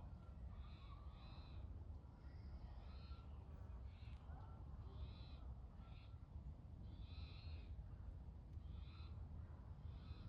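Faint bird calls: short, high, repeated notes about once or twice a second at irregular spacing, over a steady low rumble.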